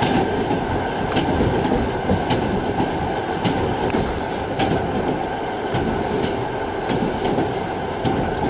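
Passenger train running on the rails, a steady rumble with sharp wheel clacks every second or so.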